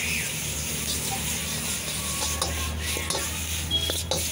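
Noodles stir-frying in a hot wok over a gas burner: a steady low hum and hiss, with the metal ladle clanking against the wok several times in the second half.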